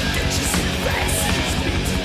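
Thrash metal band playing live: distorted electric guitar, bass and drums, with cymbal crashes about half a second and just over a second in.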